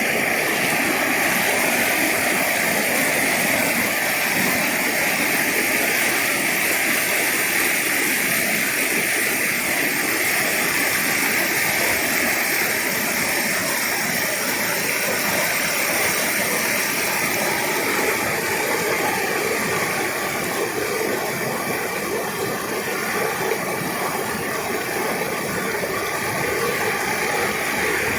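Steady rushing hiss of flowing river water, easing slightly in level after about twenty seconds.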